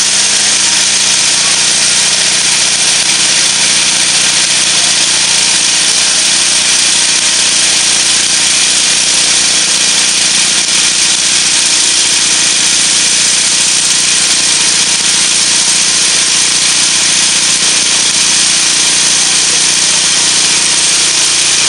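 Concrete hollow-block machine running: a loud, steady, even mechanical noise from its motor drive, with no pauses or separate knocks.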